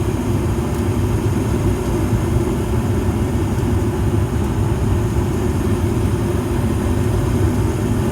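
2020 Evcon low-NOx gas furnace (a rebranded Coleman, 65,000 BTU) running at full heat, with its burners lit and blower fan on: a steady, loud low rumble.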